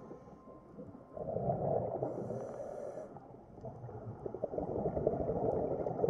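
Underwater bubbling and rumbling, an irregular crackling wash that starts about a second in, with a short high hiss in the middle.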